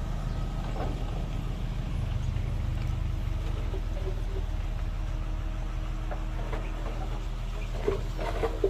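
Heavy earthmoving machine's diesel engine running steadily with a low, even rumble.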